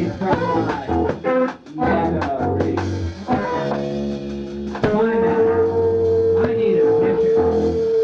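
Live rock band playing, with electric guitar and drum kit. The band plays choppy, rhythmic chords at first, then a sustained chord, and from about five seconds in one long note is held steady.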